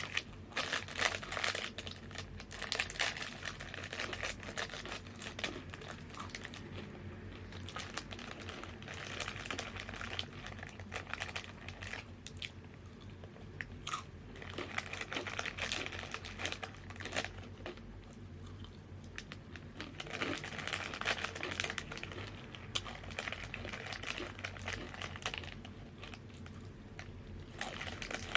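Close-up crunching and chewing of crunchy snack chips, in bouts of a few seconds each with short quieter pauses between them.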